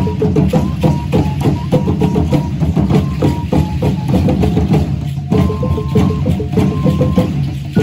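Teponaztli, a carved wooden slit drum, struck with mallets in a quick steady rhythm of about four knocks a second, over a deeper drum beat. A small flute plays a simple melody of short, high, held notes on top.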